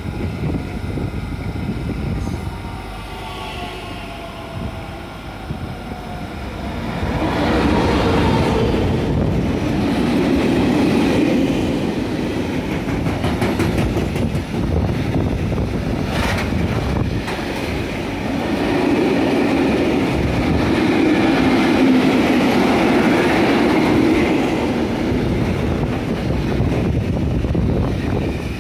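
A class 442 electric S-Bahn train's motor whine, falling in pitch over the first few seconds. Then a long freight train of flat wagons loaded with steel wire coils rumbles past close by, its wheels clattering over the rail joints, with one sharp clank about halfway through.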